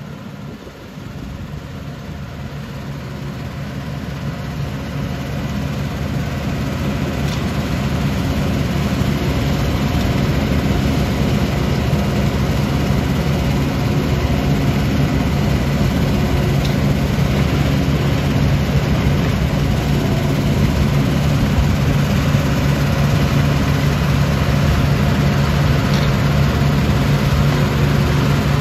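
Heavy diesel-powered aggregate machinery, a tracked screening plant and stacker conveyor, running steadily with a deep engine hum. It grows louder over the first eight seconds or so, then holds level.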